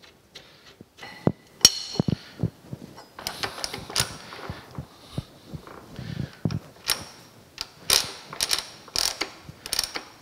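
Irregular sharp metal clicks and clinks from hands and a wrench working the cast-iron feed-works gears on an old metal planer's saddle. They are sparse at first and come thicker from about three seconds in.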